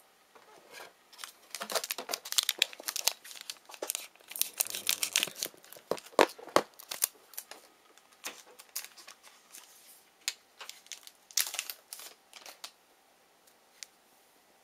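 Trading card pack wrapper being torn open and crinkled by hand, in bursts of sharp crackling, dying down near the end.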